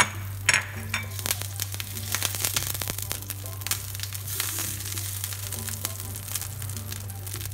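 Butter sizzling with many small crackles as it melts in a stainless steel frying pan, pushed around with a wooden spatula.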